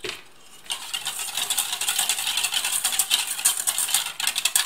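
Wire whisk beating a mustard vinaigrette in a stainless steel bowl, its wires clattering rapidly against the metal. It starts after a short pause about half a second in and goes on steadily. The water just added is being whisked in to thin the dressing.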